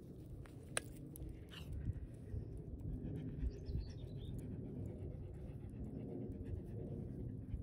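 A dog panting steadily, with a brief bird chirp about three and a half seconds in.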